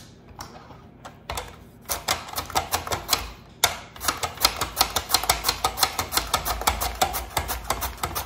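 Raw sweet potato being sliced on a Mueller mandoline: each stroke across the blade gives a crisp scraping click. The strokes come slowly at first, then settle about halfway through into a steady fast rhythm of several a second.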